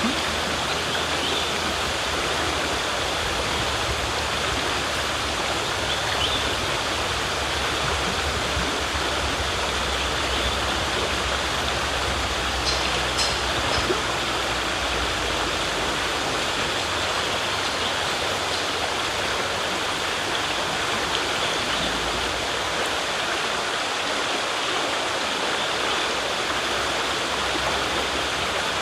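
River water flowing in a steady rush, with a few brief high ticks about halfway through.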